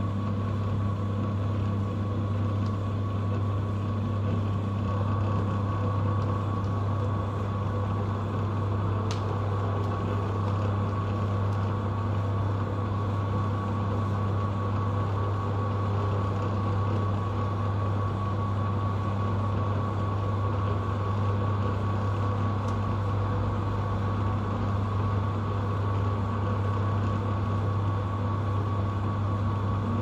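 Quality Camp mini tumble dryer running with its drum tumbling a load of microfiber cloths: a steady low motor and fan hum with a constant high whine over it.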